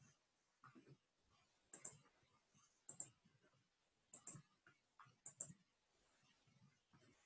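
Near silence with faint, short clicks, roughly one a second.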